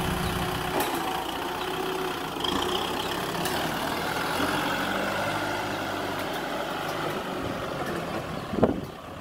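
Kubota M6040SU tractor's four-cylinder diesel engine running steadily as the tractor pushes and drives over loose dirt with its front blade, growing fainter near the end as it moves off. A brief thump is heard near the end.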